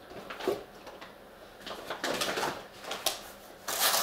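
Handling noise as a cricket bat in a plastic sleeve is pulled out of a cardboard box: plastic and cardboard rustling in several short bursts, with a sharp knock about three seconds in.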